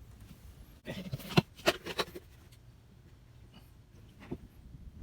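Handling at the start of an engine oil fill: a quick cluster of sharp plastic clicks and knocks about a second in, then a few faint ticks.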